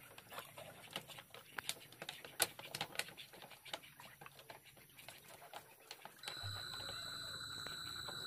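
Light splashing, dripping and small knocks as a hand gropes inside a woven bamboo fish trap held in shallow water. About six seconds in, a steady high-pitched tone starts and holds.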